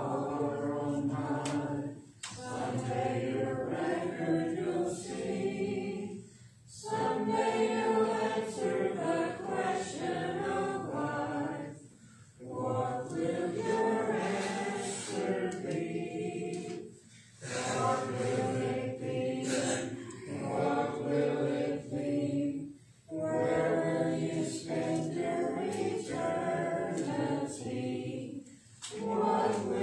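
Congregation singing a hymn a cappella, with no instruments, in phrases of about five seconds separated by short breaks for breath.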